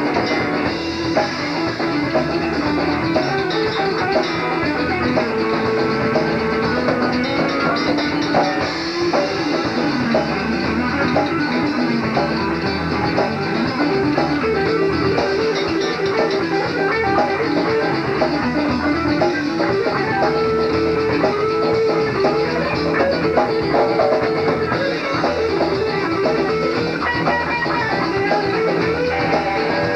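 Southern rock band playing an instrumental stretch: guitars carrying a wandering melodic line over bass and a drum kit.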